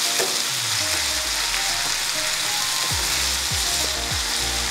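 Ginger-garlic paste and green chillies sizzling in hot oil in a kadai as they are stirred with a wooden spatula. Background music with a low, steady beat comes in over the sizzling partway through.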